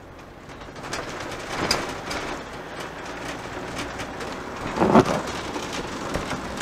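Engine and road noise inside a moving motorhome's cabin, a steady rumble and hiss that grows louder about a second in. A short, louder sound stands out about five seconds in.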